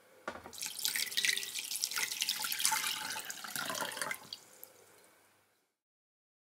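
Water poured from a glass jug into a glass bowl, splashing steadily for about four seconds, then thinning to a trickle and a few drips before stopping.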